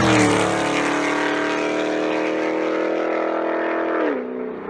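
Pontiac G8 GT's V8 pulling hard at high revs: the engine note jumps up at the start, holds high and steady, then drops about four seconds in as the sound fades.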